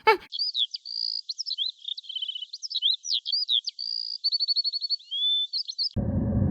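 A songbird singing a varied, continuous song of whistled notes, quick slurs and rapid trills. Near the end the song cuts off suddenly and a low, steady rumbling noise takes over.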